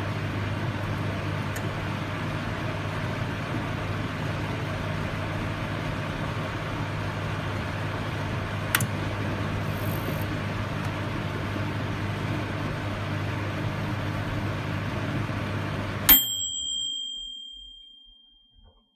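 Microwave oven running with a steady hum, with a faint click about halfway through. About sixteen seconds in it stops abruptly with a sharp click, followed by a high bell-like ding that rings and fades away over about two and a half seconds, signalling the end of the cycle.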